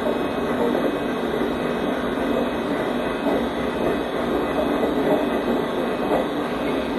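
Cars of a long HO-scale model freight train rolling past close by on the track, a steady rattle of wheels over the rails.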